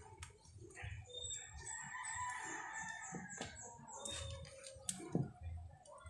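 A rooster crowing, one long call starting about a second and a half in, with a few small clicks from wires being handled.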